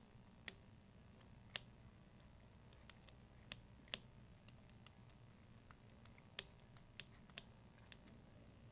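About a dozen small, sharp clicks and taps at irregular intervals against near silence: a small Phillips screwdriver and fingers working the screws of the lower bearing block back into the frame of a Blade 450 X RC helicopter.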